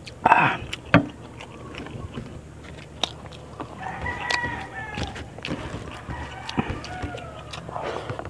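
A rooster crowing twice in the background, each crow lasting a second or more, in the second half. Before that, a loud burst just after the start and a sharp knock about a second in, as a stainless steel cup is set down on a bamboo table, with small clicks from eating throughout.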